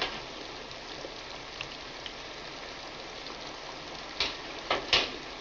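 Steady hiss of heavy rain falling outside, with a few light clicks near the end.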